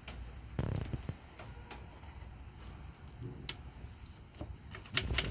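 Scattered light clicks, taps and a short rustle of hand work as battery-tray corrosion is scrubbed with baking soda and water, with a sharper click a little past the middle and a few more near the end.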